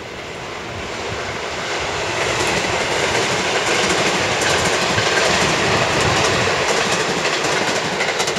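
A train passing along the tracks, its rumble rising over the first couple of seconds and then holding loud, with a run of sharp clicks from the wheels in the second half.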